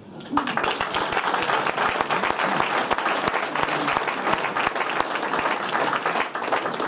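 Applause from a room of people: many hands clapping, starting suddenly and holding steady.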